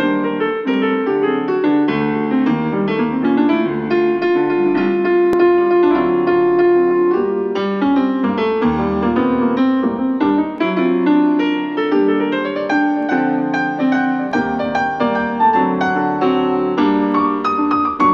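Piano-led instrumental music played through a portable Bluetooth speaker and recorded through the air, with many quick notes.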